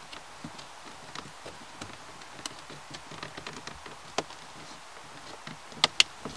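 Fingers working a plastic-bodied AEM gauge into its eyeball-vent housing on the dashboard: scattered light taps and scrapes, a sharper click about four seconds in, then two loud sharp clicks close together near the end as the gauge seats in the housing.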